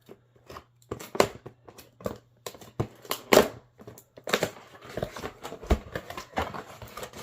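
A cardboard product box being opened and its packaging handled: irregular taps, knocks and scrapes of cardboard with rustling.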